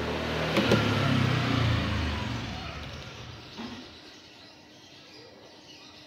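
A motor vehicle engine passing by, loudest in the first two seconds and fading away by about four seconds in, with a couple of sharp clicks under a second in.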